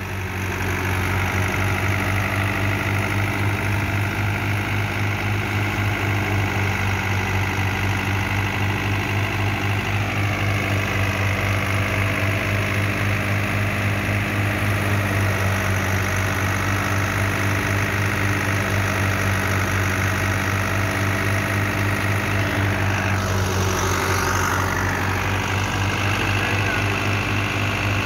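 A tractor's diesel engine running steadily at an even speed, with a regular low pulsing beat.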